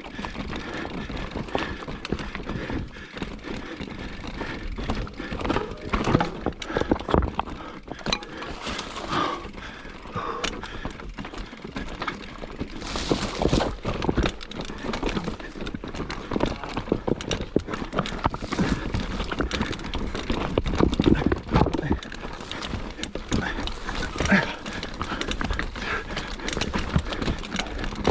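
Mountain bike climbing a rough trail: irregular knocks, clicks and rattles as the tyres and frame bump over roots and rocks, with a low rumble underneath.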